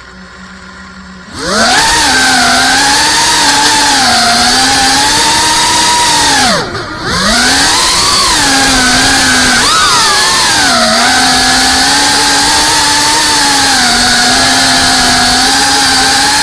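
FPV racing quadcopter's brushless motors spooling up from idle to a loud whine about a second and a half in as it takes off. The pitch rises and falls with the throttle, dropping sharply and briefly about seven seconds in as the throttle is cut, then climbing back to a steady whine.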